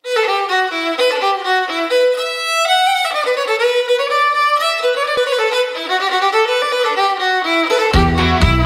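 Solo fiddle playing a folk melody alone, one note after another. About eight seconds in, the rest of the band comes in underneath with low bass notes and a steady beat.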